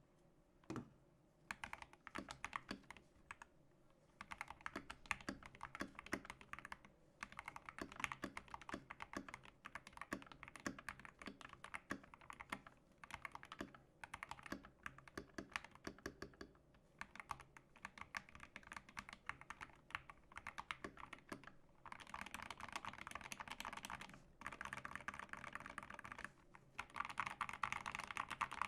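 Typing on a GK61 mechanical keyboard fitted with optical Gateron Yellow linear switches, lubed with Krytox 205g0 and filmed. It comes in bursts of keystrokes with short pauses between them, and turns into fast, continuous typing for the last several seconds.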